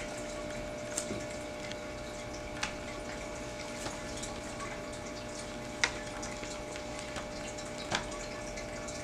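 A few light clicks and taps from handling a laptop while its power cord is unplugged, over a steady faint hum.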